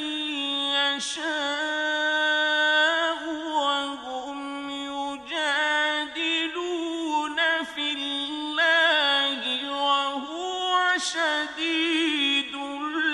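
A man's voice reciting the Quran in the melodic mujawwad style, drawing out long, ornamented held notes with only brief pauses for breath.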